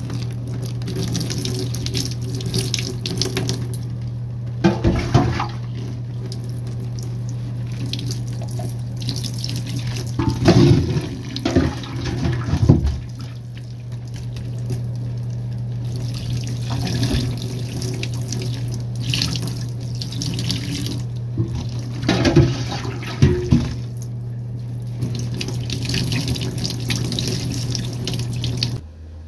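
Water running from a tap into a sink with a steady low hum, while jugfuls of water are poured over wet hair and splash into the basin, loudest around five seconds in, twice between ten and thirteen seconds, and again around twenty-two seconds. The running water and hum cut off shortly before the end.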